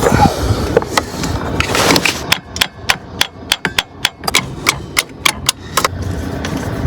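Hand tools clicking on metal while an alternator is bolted back onto a van's engine. A run of sharp, irregular clicks, a few a second, starts about two seconds in and stops about a second before the end.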